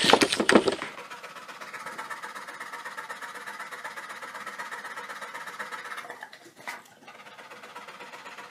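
About a second of loud rushing, buffeting noise, then a much quieter steady hiss, broken by a brief soft sound near the end.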